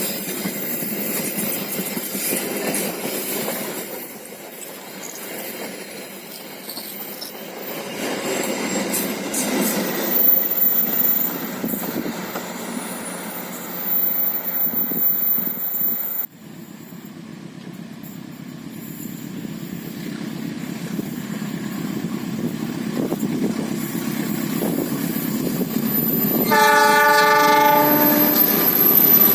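Diesel-electric trains passing with steady wheel-on-rail noise. Partway through the sound cuts to another approaching train that grows steadily louder. Near the end its locomotive sounds a multi-tone air horn for about two seconds.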